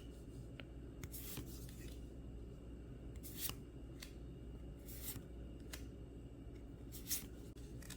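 Pokémon trading cards handled and slid against one another: four faint, short papery swishes a second or two apart, with a few light clicks.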